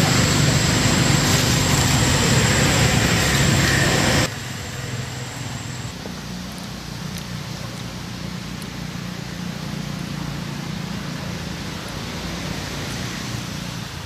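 A motor vehicle's engine running steadily with a noisy rush; about four seconds in it drops suddenly to a quieter, steady rumble.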